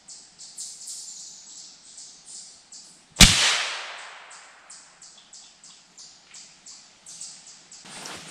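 A single gunshot about three seconds in, its report dying away over about a second. Behind it, faint high-pitched chirping pulses about three times a second.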